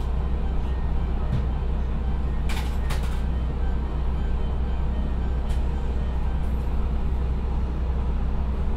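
JR Kyushu KiHa 125 diesel railcar's DMF13HZ engine idling steadily while the train stands at a station, heard from inside the car. Two short clicks come about two and a half and three seconds in.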